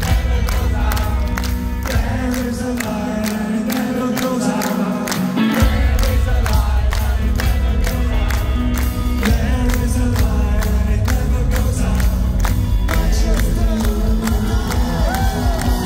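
Live rock band and orchestra playing loud, with the crowd singing along. The bass drops out about two seconds in and comes back in with the beat a few seconds later.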